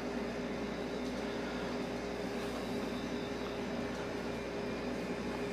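Steady background machinery hum with a faint hiss and a few held low tones, unchanging throughout; the hand-crimping of the dough makes no distinct sound.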